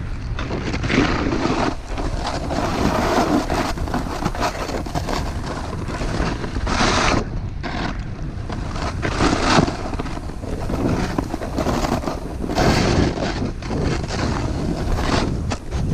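Snowboard sliding and carving down a snowy slope, its base and edges hissing and scraping through the snow in uneven surges, with wind rushing over the microphone.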